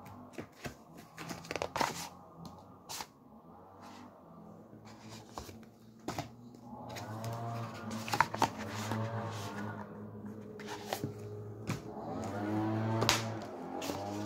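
Paperback book being handled, giving scattered soft clicks and rustles. Under it runs a steady low hum, joined about halfway through and again near the end by slowly rising and falling tones.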